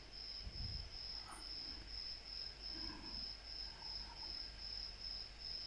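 An insect chirping faintly in a high, even pulse, about two chirps a second, over a low steady hum.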